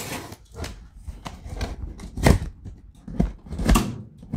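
A cardboard box being opened by hand: scraping and rustling of cardboard with a run of clicks and knocks, the two loudest about halfway and near the end.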